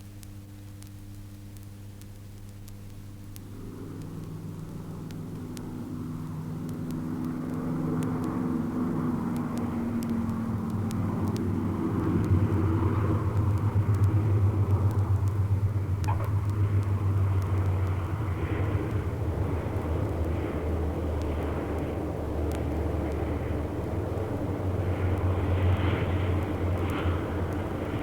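An engine running with a low steady hum, growing louder over the first dozen seconds and then holding at full level.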